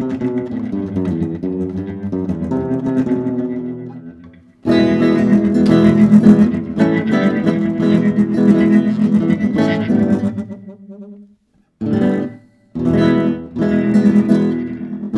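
Kremona F65 nylon-string classical guitar played with a HyVibe System-1's Vintage effect sounding through the guitar body, chords ringing out, with brief breaks about four seconds in and again near eleven seconds. The owner finds the Vintage effect overpowers this guitar.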